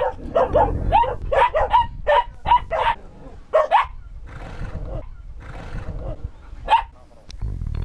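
A puppy yapping in quick, high yips that rise in pitch, about three a second, for the first four seconds; then two longer breathy sounds and a single sharp yip near the end.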